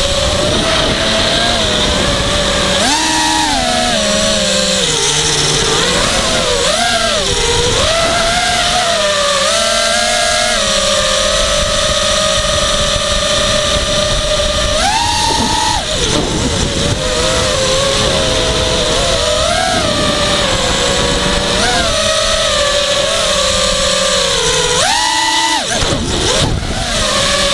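Blade Conspiracy 220 quadcopter's brushless motors and propellers whining, heard from the onboard camera, the pitch rising and falling with the throttle. Several sharp throttle punches make the whine jump up in pitch, the last near the end as the quad flips over, dropping away right after.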